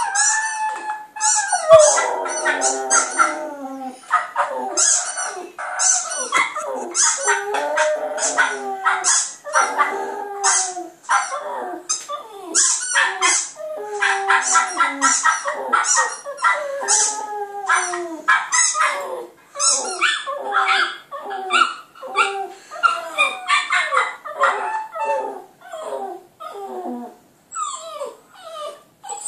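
Border terrier puppy howling, a long run of downward-sliding howls mixed with short yips, dying away near the end.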